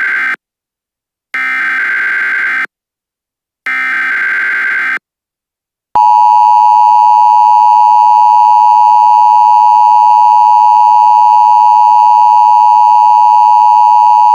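Emergency Alert System SAME header: three short bursts of buzzing digital data tones, the first already ending, with a second or so between them. About six seconds in, the loud steady two-tone EAS attention signal starts and holds.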